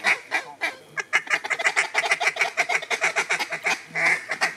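Rapid, chattering duck calling: a quick run of short clucking notes, several a second, with a louder stretch about a second in and another near the end.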